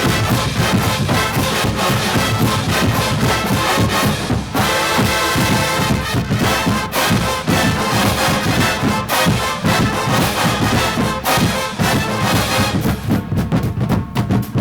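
Collegiate marching band playing a big-band style number at full volume: massed brass over marching drums, with short, punched chords near the end.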